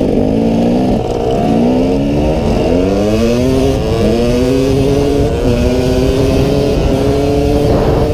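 Dirt bike engine pulling hard through the gears. Its pitch climbs, drops back at each upshift several times, and then holds fairly steady near the end.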